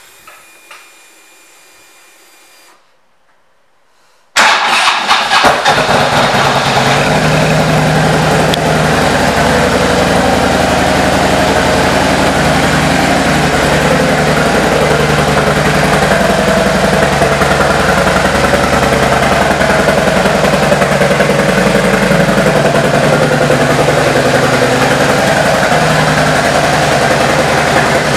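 A 2013 Harley-Davidson Ultra Limited's Twin Cam 103 V-twin, fitted with an aftermarket exhaust and a Screaming Eagle intake, starts about four seconds in after a faint hum, then idles steadily.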